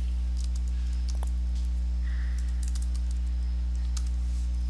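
Faint computer-keyboard typing, scattered key clicks, over a steady low electrical hum.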